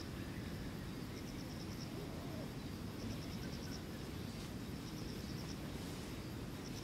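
Insects calling in short trains of rapid high chirps, a burst roughly every second and a half, over a steady low rumble of outdoor background noise.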